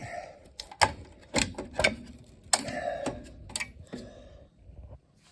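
Irregular sharp plastic clicks and rattles, about a handful over a few seconds, from handling and unplugging wiring-harness connectors on a flat-screen TV's power supply board.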